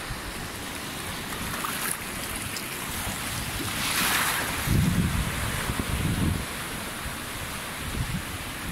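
Shallow sea water surging and foaming over a rocky reef flat, with a louder wash about four seconds in. Wind rumbles on the microphone for a couple of seconds just after.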